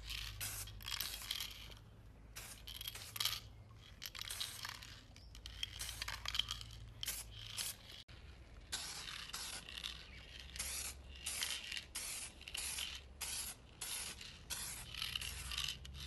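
Aerosol spray can hissing in many short bursts as paint is sprayed on, with a brief break about halfway through.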